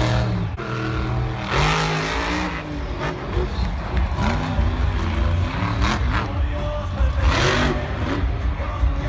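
Grave Digger monster truck's supercharged V8 engine revving hard, rising and falling in pitch several times over a steady low rumble.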